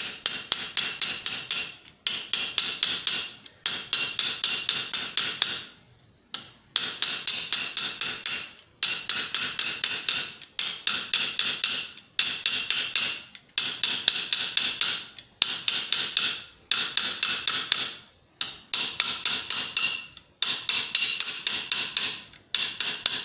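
Rapid light hammer taps on a steel ball bearing seated in the mouth of annealed .50 BMG cartridge brass, swaging a small ridge out of the brass. The taps come about seven a second in runs of one to two seconds with short pauses between, each ringing with a bright metallic tone.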